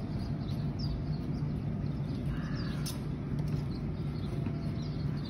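Inflatable bouncy castle's electric blower running steadily, a constant low hum as it fills the castle with air. Birds chirp faintly above it.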